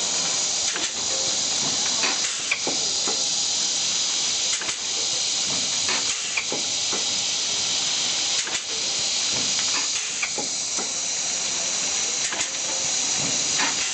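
Blister packing machine running: a steady high hiss with sharp clacks from its press stations every second or two.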